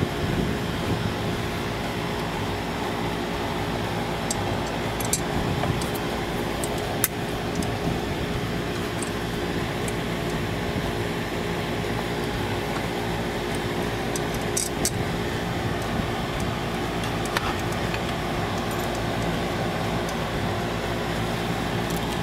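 A steady mechanical hum, with a few short, faint clicks scattered through it.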